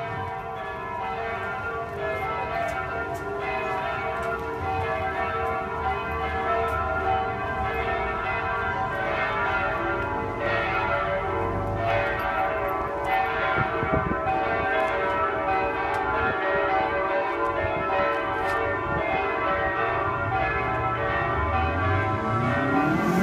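Church bells ringing continuously, several bells struck in overlapping succession so that their tones sound together without a break.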